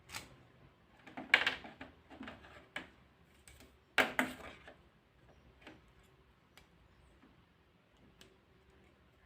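A cable stripper working on an Ethernet cable: irregular clicks and short scrapes as the tool is clamped and turned on the outer jacket and the jacket is pulled off. The two loudest sharp clicks come about a second in and about four seconds in.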